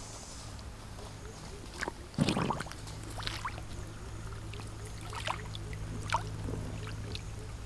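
Shallow muddy water splashing and sloshing as a big catfish thrashes and swims. The loudest splash comes about two seconds in, with smaller splashes scattered after it over a steady low hum.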